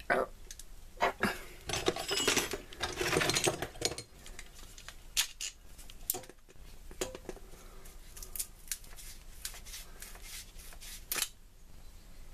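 Hand-handling noises from a plastic glue bottle whose nozzle is clogged and won't dispense: a busy stretch of scraping and rustling about two to four seconds in, then scattered sharp plastic clicks as the cap and tip are worked at.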